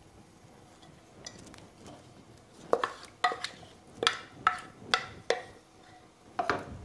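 A utensil scraping beans out of a pot, knocking against the pot and the steel pan: a run of about eight sharp clinks and knocks that begins nearly three seconds in.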